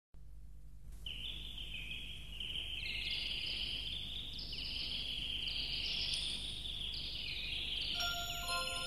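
A dense chorus of many small birds chirping and twittering, starting about a second in, over a faint steady low hum. Near the end, plucked-string music begins to play.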